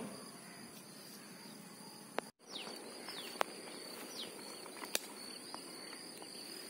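Insects droning steadily at a high pitch, with faint scattered clicks and a few short falling chirps. The sound drops out for a moment a little over two seconds in.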